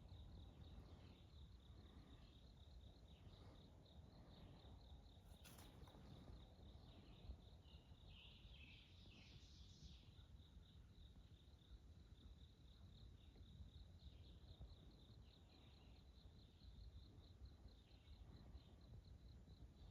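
Near silence, with faint insect calls in a steady pulsing rhythm and a short bird call about eight seconds in.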